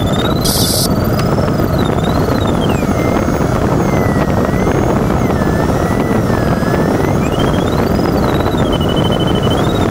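Steady rush of airflow in the cockpit of an LS4B sailplane in flight. Over it, a thin electronic variometer tone slides slowly up and down in pitch as the rate of climb changes. A short high hiss comes about half a second in.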